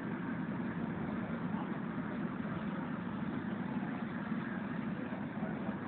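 Steady rumble of a railway carriage rolling along the track, heard at an open carriage window of a steam-hauled train nearing a station.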